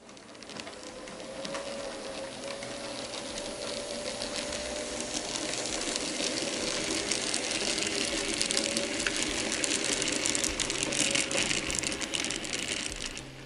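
N-scale model diesel locomotive and its train running past on the track: a steady electric motor whine under a rattle of tiny clicks from the wheels on the rails, growing louder as it approaches and cutting off suddenly near the end.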